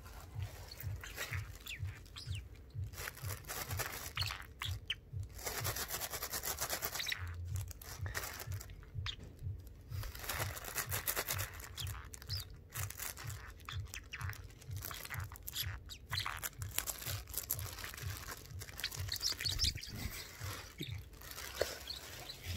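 A plastic garbage bag rustling and crinkling in repeated bursts, with a small pet parrot giving a few high chirps near the end.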